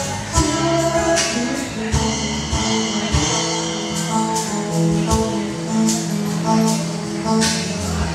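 Live band music: a guitar and an electric bass guitar playing, with a steady beat of percussion hits.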